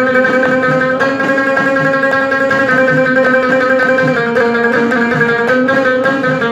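Instrumental Moroccan folk music: a long-necked lute plucked in long held notes over a frame drum beating a steady pulse about twice a second.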